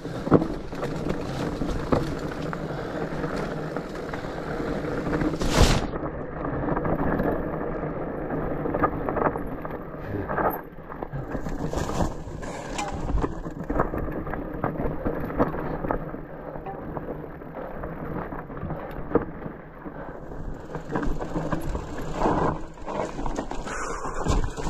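Rigid fat bike descending a rough dirt and rock trail: a steady noise of the tyres rolling over the ground, with frequent knocks and rattles as the bike hits bumps, and one loud knock about six seconds in.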